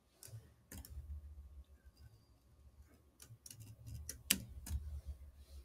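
Faint computer keyboard typing: two single key clicks in the first second, then a quicker run of keystrokes in the second half.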